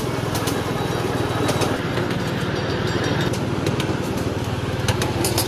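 A small engine running steadily, with rapid even pulses and scattered sharp clicks over it.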